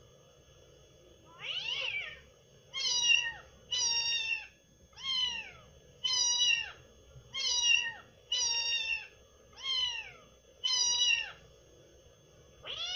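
A cat meowing over and over: about ten short meows, roughly one a second, each dropping in pitch at its end.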